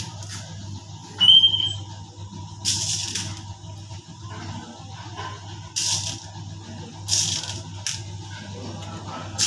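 Sprinkles shaken from a shaker onto a cake in a few short bursts, over a steady low hum. A brief high squeak about a second in is the loudest sound.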